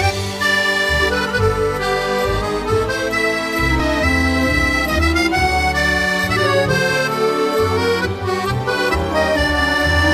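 Instrumental background music: a melody of held notes on a reedy keyboard instrument such as an accordion or harmonium, over steady changing bass notes.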